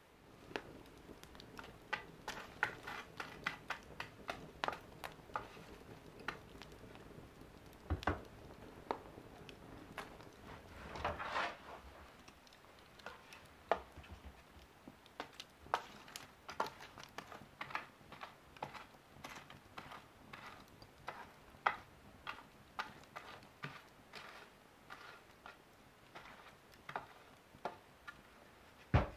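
Wood fire crackling in an open stove firebox: irregular sharp pops and snaps, with a brief hiss about eleven seconds in. A single louder knock comes near the end.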